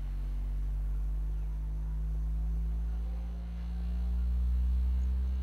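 Harbinger VS18 18-inch powered subwoofer playing a bass frequency sweep at half volume: a deep hum with fainter overtones above it, dipping in loudness about three and a half seconds in before swelling again.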